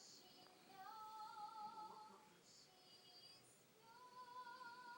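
Two drawn-out, high-pitched vocal notes that waver slightly in pitch, each lasting more than a second: one about a second in and one near the end, faint overall.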